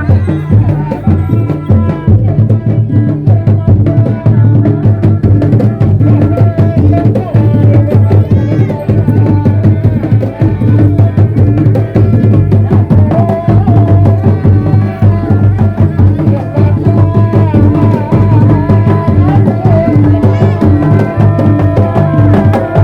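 Kuda lumping troupe music: drums beat a steady, driving rhythm under a wavering melody line.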